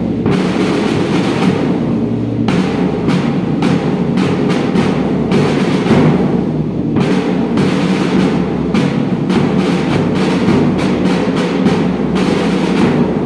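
Marching drum group playing: two side drums beaten with sticks over a large bass drum struck with a padded mallet, in dense, unbroken beating.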